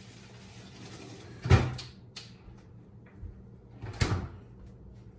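A refrigerator's vegetable drawer pulled open and pushed shut: two loud knocks about two and a half seconds apart, with lighter clatter between.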